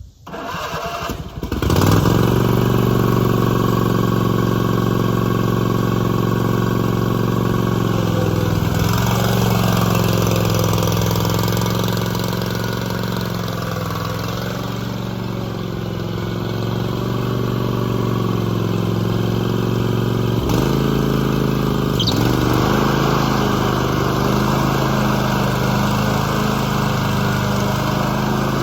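Gravely 54XL zero-turn lawn mower engine cranked and catching within about two seconds, then running steadily. Its engine note shifts a couple of times, most sharply about two-thirds of the way through.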